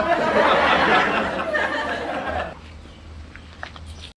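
A burst of laughter from several people, lasting about two and a half seconds, then dropping away.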